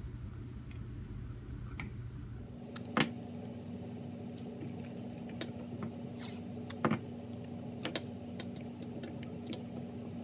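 Faint handling sounds of masking tape being pulled from the roll and pressed onto a plastic steering-wheel trim piece: scattered light taps and rustles, with a sharper tap about three seconds in and a couple more later, over a low steady hum.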